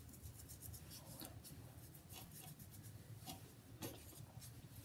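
Faint, irregular scratchy rubbing: a piece of aloe vera leaf being scrubbed against the scalp through the hair.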